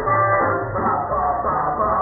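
Live swing jazz band playing dance music, with a steady bass line under it. The sound is heavily muffled, its upper range cut away, because the audio was deliberately altered.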